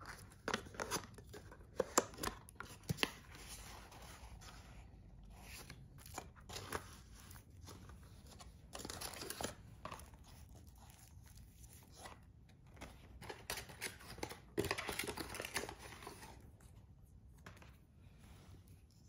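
Paperboard gift box being opened by hand: flaps lifted and paper wrapping rustled and crinkled, in a string of small taps and rustles that grow louder around the middle and again late on.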